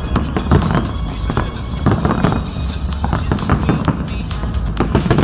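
Fireworks bursting in quick succession, many sharp bangs and crackles over a steady low rumble, with music playing alongside.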